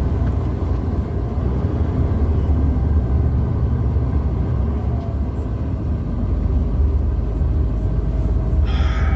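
Dump truck's diesel engine running under way with road noise, heard inside the cab as a steady low rumble whose note shifts about six seconds in. A short hiss comes near the end.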